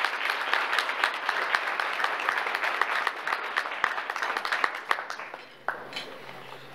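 Audience applauding: dense clapping that dies away about five seconds in, leaving a few scattered claps.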